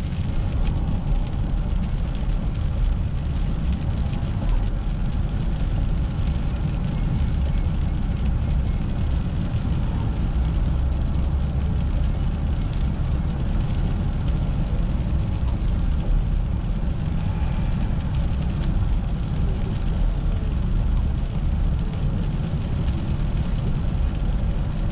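A car driving on a rain-wet road: a steady low rumble of engine and road noise with a hiss above it, unchanging throughout.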